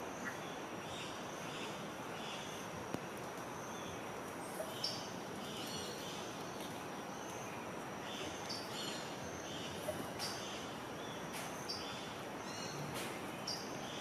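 Tropical forest ambience: an even hiss with short bird chirps repeated throughout and a thin, steady, high-pitched tone, broken by a few brief sharp taps.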